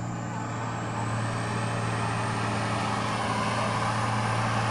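Off-road trial truck's diesel engine working hard as the truck climbs a dirt mound: a steady low drone with a thin high whistle slowly rising above it.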